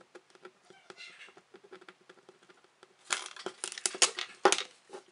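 Faint ballpoint pen scratching as letters are written on a strip of duct tape. About three seconds in it gives way to louder crinkling and crackling as the tape strip is pressed and handled.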